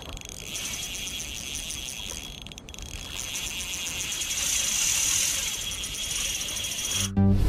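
Shimano Stradic Ci4 1000 spinning reel being cranked: a fast, even whirring tick that stops briefly about two and a half seconds in and grows louder past the middle, over a low rumble. Music cuts in just before the end.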